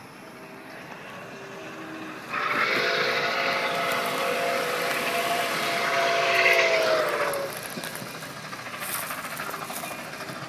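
Steam whistle of Nickel Plate Road 765, a 2-8-4 Berkshire steam locomotive, blowing one long chord of several notes for about five seconds, starting about two seconds in and sagging in pitch as it cuts off.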